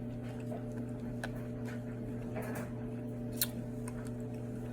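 Faint, irregular clicks and mouth sounds of a person eating a spoonful of Blizzard ice cream, over a steady low hum.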